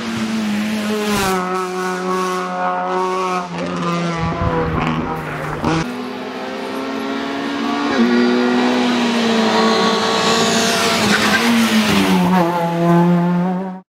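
Rally car engines at high revs, their pitch stepping up and down with gear changes and lifts, with tyre squeal. The sound cuts off suddenly near the end.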